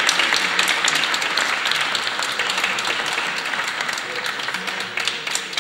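Audience applauding: a dense mass of hand claps that eases off a little toward the end.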